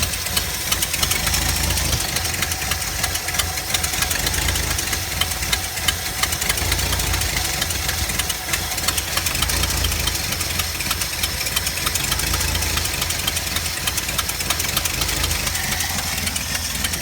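4.9-litre engine idling steadily, with a dense run of rapid ticks over a low, pulsing drone. The owner suspects a misfire on cylinder 1.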